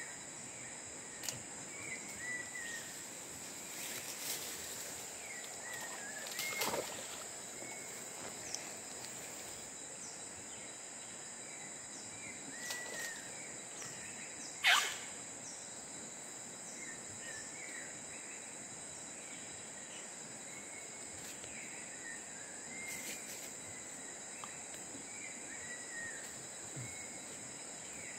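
Rainforest insects making a steady high-pitched drone, with short chirping calls repeating about once a second. Two brief sharp knocks cut in, the louder one about halfway through.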